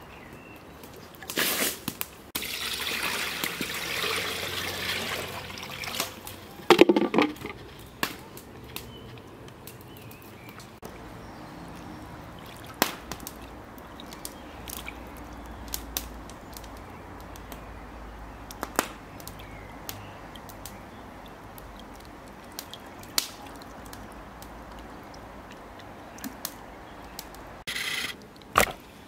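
Liquid pouring or trickling for a few seconds, followed by scattered sharp clicks and a few knocks.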